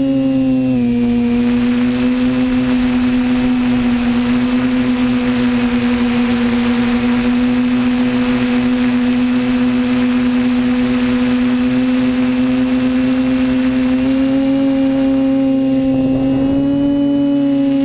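Quadcopter drone's motors and propellers whining steadily, the pitch dropping slightly about a second in and rising again near the end.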